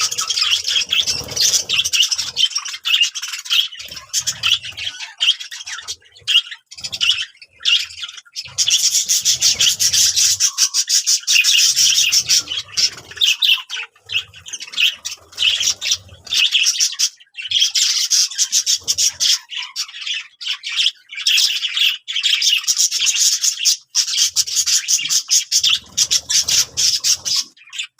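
Budgerigars chattering and warbling almost without pause, with squawks and rapid high chirps and a few brief gaps.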